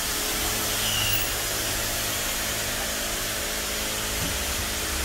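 Steady whir of an electric motor-driven machine running without a break: an even rushing noise with a low hum underneath.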